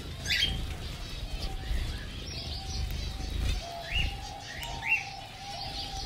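Zebra finches calling with short, repeated nasal beeps and a few quick rising chirps, with wings fluttering as the small birds crowd onto a feeding hand.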